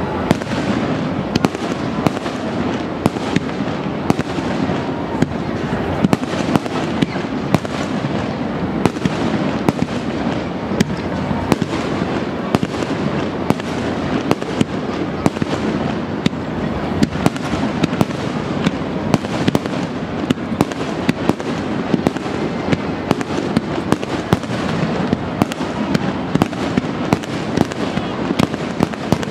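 A fireworks display going off without a break: a steady wash of noise pierced by many sharp cracks and pops, several a second.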